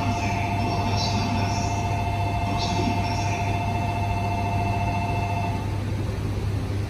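A steady two-note electronic signal tone with a fast flutter that cuts off about five and a half seconds in, over a steady low hum, on a railway station platform.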